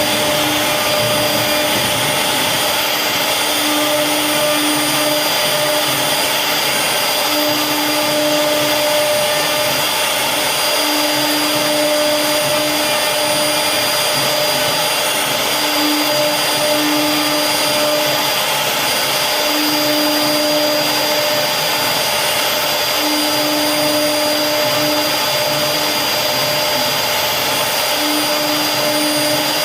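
CNC router spindle running steadily as it carves a wooden design, with a lower motor tone that switches on and off every second or two as the machine moves.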